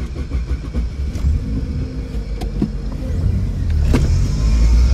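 Car cabin noise while driving: a low rumble of engine and road, growing louder in the second half, with a few faint clicks.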